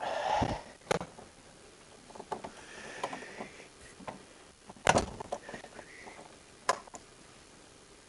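Digging in soil and rubble: a scraping rush of earth at the start, softer scraping later, and a few sharp knocks of tool on stone, the loudest about five seconds in.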